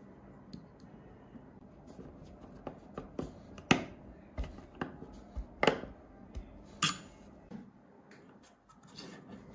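Screw being driven by hand through a steel angle bracket into a wooden board: scattered clicks and light metallic knocks from the screwdriver and bracket, the sharpest three of them between about four and seven seconds in.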